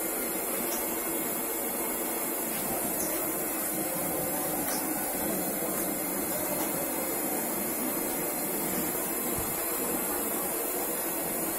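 A steady hiss at an even level, with a few faint clicks.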